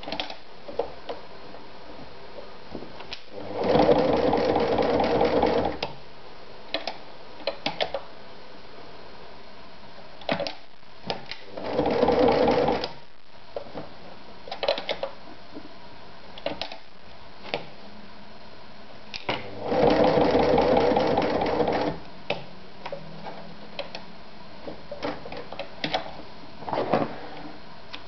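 Singer Starlet 354 sewing machine stitching through leather in three short runs of about two, one and a half, and two and a half seconds, with scattered clicks between the runs.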